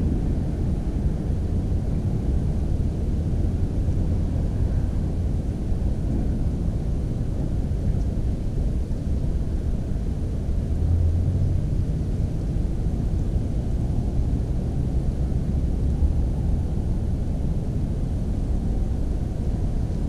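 Steady low rumbling noise with nothing distinct above it.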